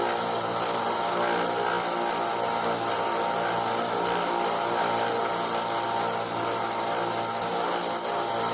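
Bench belt grinder running steadily while a knife's canvas handle scales are sanded down on it: a constant motor hum under the hiss of the abrasive belt.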